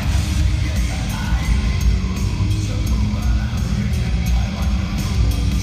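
Heavy rock music with guitar, drums and singing playing over an arena's sound system, steady throughout.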